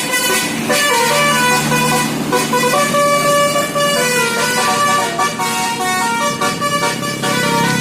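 A bus's basuri telolet horn, a multi-note musical horn, playing a tune of stepped notes, with a low steady drone underneath.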